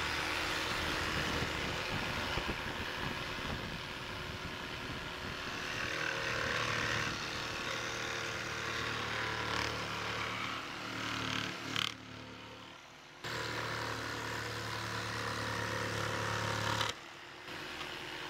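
Jigsaw mounted upside down under a work table, its motor running steadily while spruce cladding boards are fed across the blade to cut rounded corners. The sound dips briefly about twelve seconds in and drops a little near the end.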